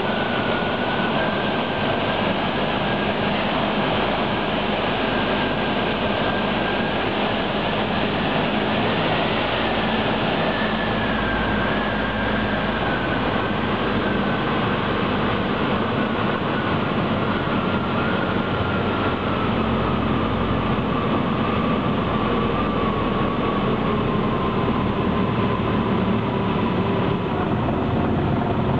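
Cabin noise of a single-engine light aircraft on landing approach: a steady engine and propeller drone over rushing air, with a whine in it that sinks slowly in pitch as power is brought back for the landing.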